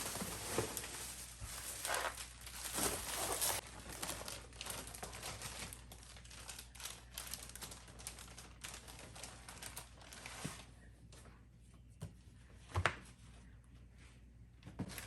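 Bags rustling and crinkling as stacks of comic books are pulled out of them, loudest in the first few seconds and softer after, with one sharp knock near the end.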